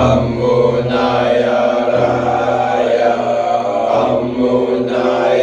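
Chanting voice holding long, sustained vowel tones over a steady low drone. The chant starts again abruptly right at the start, after a brief pause.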